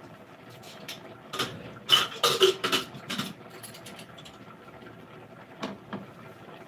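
Scattered knocks and clatter of kitchen utensils, busiest about two seconds in, over a faint steady hum.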